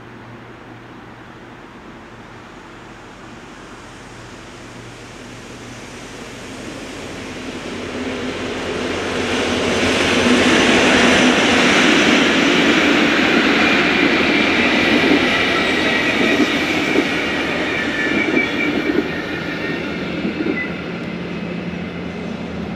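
Passenger train passing: the coaches' wheels rumble on the rails, growing louder as it approaches and easing off only slightly as it goes by. Thin, high wheel squeal rings out over the rumble in the second half.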